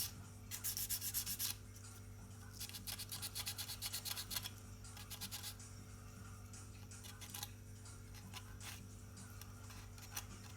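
Faint, quick back-and-forth sanding strokes on the plastic body of a 1/24 scale model car, in three short bursts in the first half, then a few stray scrapes. A steady low hum runs underneath.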